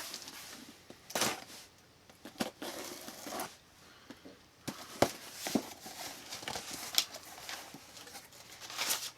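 Packing material crinkling and rustling as a boxed collectible figure is unwrapped, with irregular sharp crackles and handling clicks.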